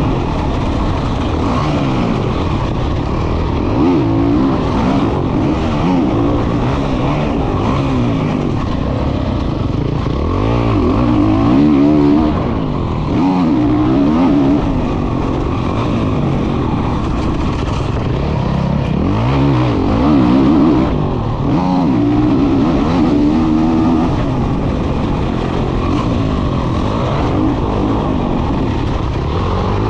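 Honda CRF450 single-cylinder four-stroke motocross engine heard on board while the bike is ridden hard, its pitch rising and falling over and over as the throttle is opened and rolled off and the gears change.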